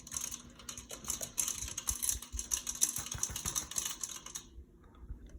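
Casablanca Four Seasons III ceiling fan running on low with a rapid, irregular clicking and rubbing from the motor, over a faint steady hum. The owner takes the noise for a screw or a piece of debris rubbing inside the motor. The clicking stops about four and a half seconds in.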